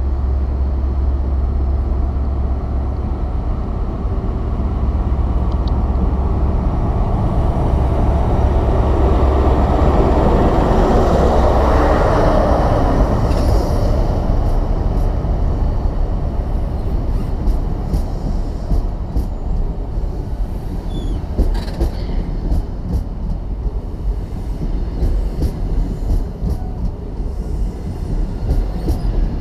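InterCity 125 high-speed train approaching and running past along the platform line. The Class 43 power car's diesel engine drones and the sound builds to its loudest as the power car passes about twelve seconds in. The Mark 3 coaches then rumble by, with a run of clicks and knocks from the wheels.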